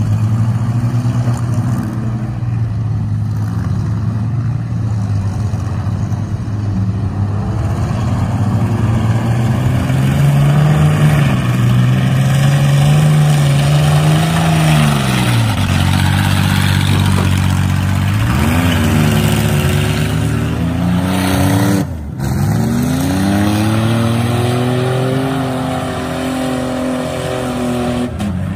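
Demolition-derby minivan engines running and revving hard, pitch climbing and dropping again several times as the vans drive and shove in the mud, with a brief sudden drop in the sound about three-quarters of the way through.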